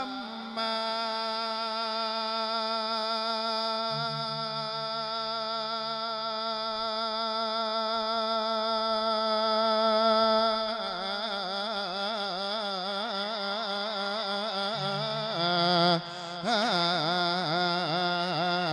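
A Buddhist monk's voice chanting a sermon in the melodic Isan lae style. He holds one long note for about ten seconds, then moves into a wavering, ornamented melody, with a short breath break near the end.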